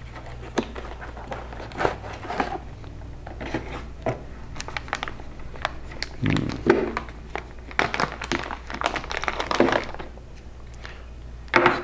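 Unboxing handling noise: cardboard box flaps opening and a clear plastic bag crinkling as a small radio is lifted out and handled, with scattered clicks and rustles.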